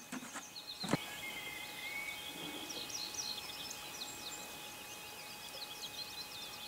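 Small birds chirping in many short, quick high notes over a steady outdoor hiss, with a single knock about a second in.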